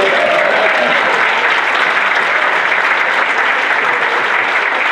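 Church congregation applauding, a dense steady clapping that holds at one level throughout.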